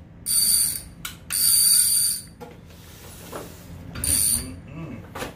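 An Avet MXL lever-drag fishing reel being worked by hand, its ratchet clicker giving three short, high-pitched buzzing bursts: two close together, then a third a couple of seconds later.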